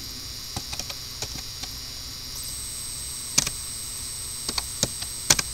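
Computer keyboard keys clicking as a few short commands are typed: a quick run of keystrokes, then a louder single click about three seconds in and a few more clicks near the end. A steady electrical hum and hiss lie underneath.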